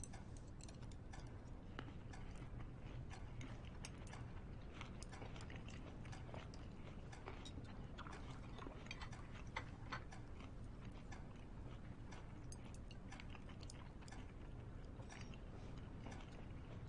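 Quiet, irregular clicks and light clinks of chopsticks against plates and bowls as people eat, with soft chewing, over a low steady room hum.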